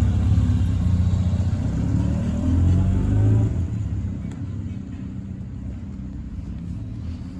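Motor vehicle engine running at low revs, swelling briefly about three seconds in, then easing off and fading as the traffic slows.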